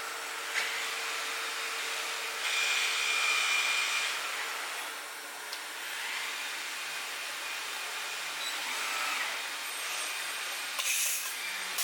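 5-axis CNC stone-working machine running, a steady noisy whine with a louder stretch about two and a half seconds in and a short burst near the end.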